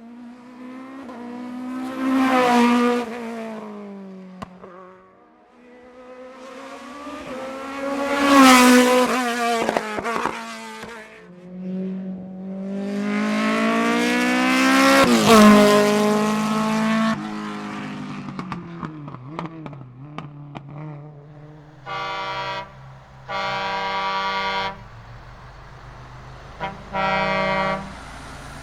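Hillclimb race cars at full throttle, heard in three separate loud passes with the engine pitch climbing through the gears and dropping away. Near the end come three short bursts of an engine held at one steady pitch.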